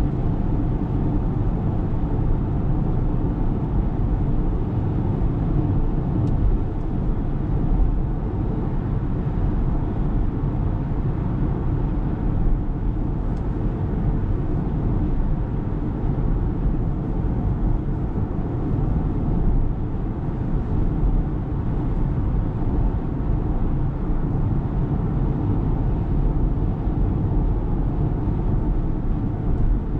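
Steady low road rumble and tyre noise from a 2023 Ora Good Cat electric hatchback driving, with no engine note.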